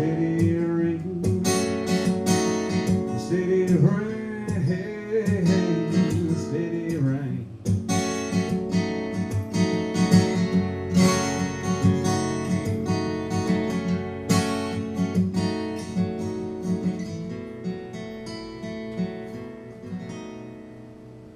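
Acoustic guitar strumming chords through a song's instrumental ending, with a wavering, sliding melody line over it a few seconds in. The strumming thins out and dies away near the end.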